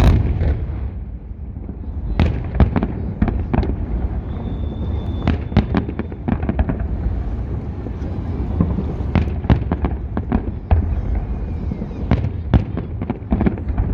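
Fireworks shells bursting in quick, irregular succession: many sharp bangs over a continuous low rumble.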